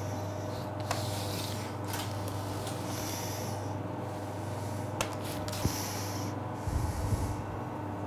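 A plastic scoring blade is drawn lightly across the egg-washed puff-pastry top of a galette, scratching in short strokes with a few faint clicks. Under it runs a steady low hum, and there are short breaths through the nose close to the microphone.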